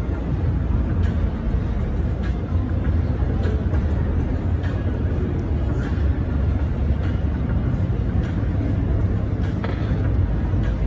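Steady background din of a busy exhibition hall: a low, even rumble with indistinct crowd voices.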